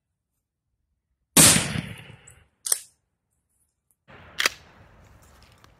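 A Stevens Model 77F pump-action shotgun fires once about a second and a half in, a single loud blast that fades over about a second. Two sharp clicks follow, one about a second after the shot and another near the end.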